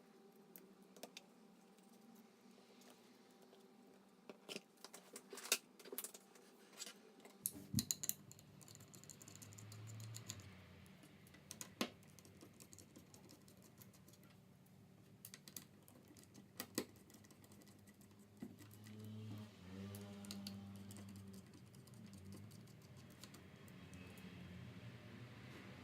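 Scattered small clicks and taps of hard plastic and metal parts being handled, with soft handling noise between them: tools, screws and laptop parts being worked on during a disassembly.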